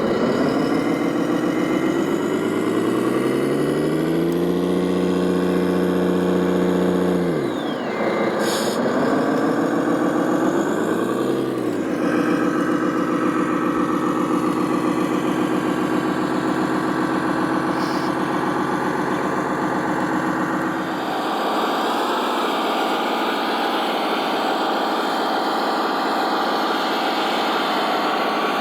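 An RC construction vehicle's engine sound revs up and holds steady, drops away briefly, then revs up again and runs on; about two-thirds of the way through its deepest tones drop out and it runs with a rougher, noisier tone.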